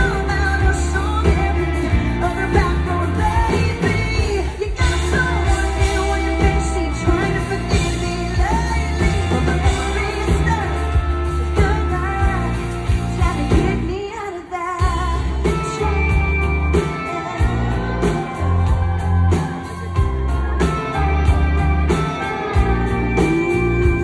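Live country band playing with a woman singing lead over electric and acoustic guitars, bass and drums, heard from the crowd. About halfway through the band drops out for a moment, then comes back in.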